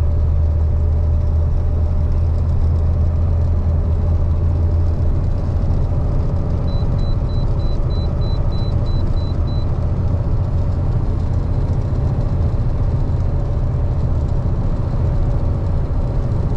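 KamAZ 4308 truck driving at highway speed, heard from inside the cab: a steady low engine and road drone. About halfway through there is a short run of faint, evenly spaced high-pitched beeps.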